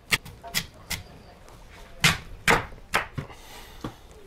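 Kitchen knife cutting through a raw sweet potato and knocking on a wooden cutting board: about eight sharp chops at uneven intervals.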